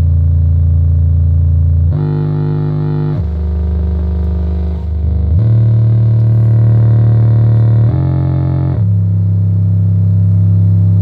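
Home theater subwoofer playing a bass-heavy music track at full volume: long, deep bass notes with a buzzy edge, shifting pitch every one to three seconds.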